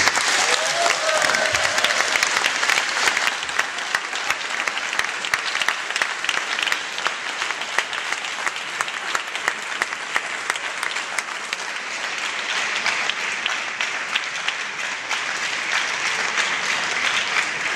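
Large audience applauding, a dense, steady mass of hand claps.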